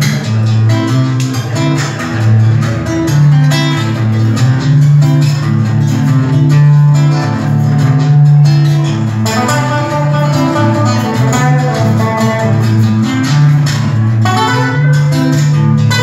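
Two acoustic guitars playing an instrumental passage, the nylon-string guitar's plucked notes over steady low bass notes.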